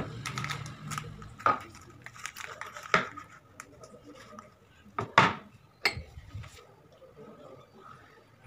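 Bottles, a drinking glass and bowls being picked up and set down on a hard tabletop: about six sharp knocks and clinks spread out, the loudest about five seconds in.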